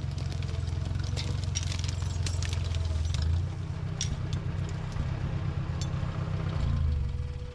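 An engine running steadily with a deep rumble, with light clattering and knocks over it.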